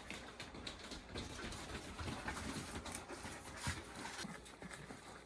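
Sheep eating broccoli and moving about: faint, scattered crunching clicks and soft thumps.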